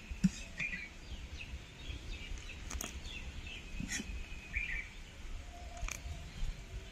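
Outdoor background noise with a low rumble, small birds chirping now and then, and a few faint clicks.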